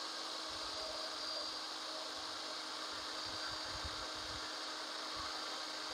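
Corded hammer drill running at full speed, a small bit drilling through eighth-inch steel angle iron. The motor gives a steady whine that is faint and unchanging.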